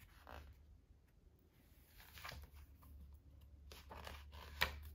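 Pages of a picture book being turned and handled: a few soft paper rustles, with a sharper flick of a page near the end, over a low steady hum.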